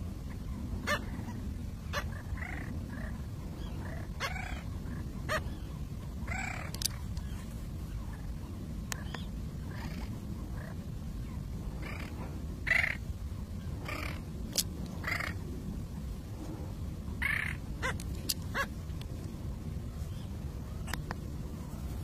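Short animal calls, a dozen or more, scattered irregularly over a steady low rumble; the loudest come about two thirds of the way through.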